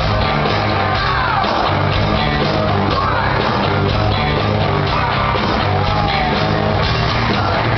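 Hard rock band playing live at full volume: distorted electric guitar, bass and drums, with the top end cut off.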